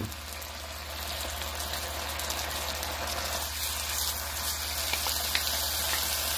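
Frozen peas, carrots and chopped onion sizzling in oil in a wok while being stirred with a wooden spoon: a steady hiss that slowly grows louder.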